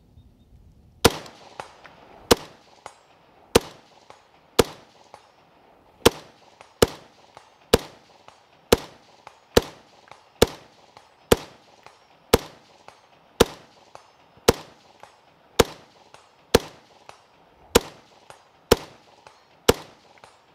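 Robinson Armament XCR-L semi-automatic rifle firing a steady string of about nineteen shots, roughly one a second. Many shots are followed about half a second later by a fainter second crack.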